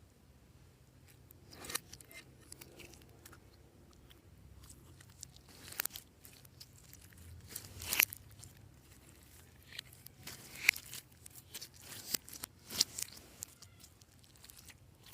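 Hands working slime, with irregular sharp pops, clicks and crackles as it is squeezed and stretched, a few of them loud.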